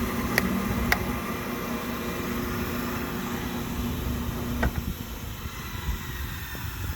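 Homemade electric band sawmill running, a steady hum with a whine that slowly drops in pitch, and a few sharp clicks over it.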